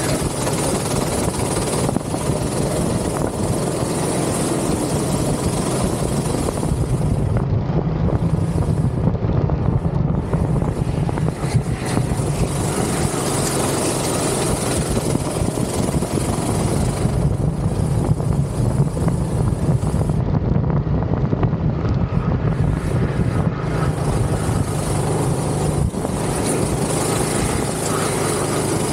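Go-kart engine running continuously at speed, a steady buzzing drone with a rough rasp over it.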